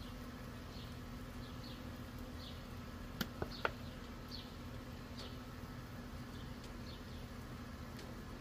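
Steady hum of a Blackstone griddle's propane burners, with faint sizzling from the buttered cooktop as pancake batter is poured on and faint short high chirps recurring throughout. A few sharp clicks sound together a little past three seconds in.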